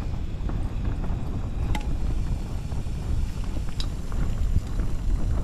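Wind buffeting the microphone over the steady hiss of a Fire-Maple gas canister stove heating a pot of water, with two small clicks, about two and four seconds in.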